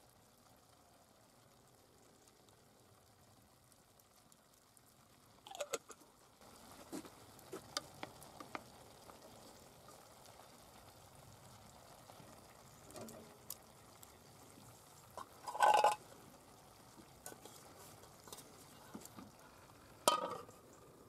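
A wooden spoon stirring greens in a metal cooking pot, with scattered light knocks and scrapes and a louder clatter about three-quarters of the way through. Near the end, the metal lid goes down on the pot with a clank.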